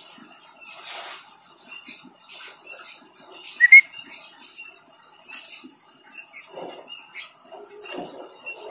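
A small bird chirping over and over in short high calls, several a second, with one louder rising call about four seconds in. Soft rustles come in between.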